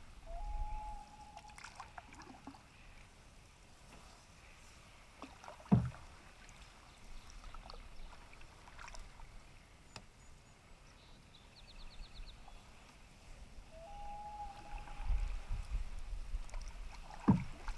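Canoe paddling on calm water: paddle strokes swishing through the water, with two sharp knocks, likely the paddle against the canoe's hull, about six seconds in and near the end. A brief squeak sounds twice, at the start and late on.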